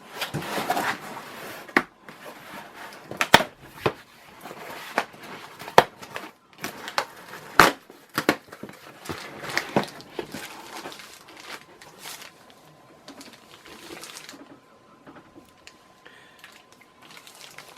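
Cardboard fan packaging being handled and opened: scattered knocks, scrapes and crinkling, with a sharp tap now and then. It gets quieter near the end.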